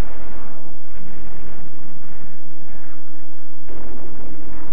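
Loud rumbling gunfire and explosions on an old wartime film soundtrack, with a heavier blast near the end, over a steady low hum.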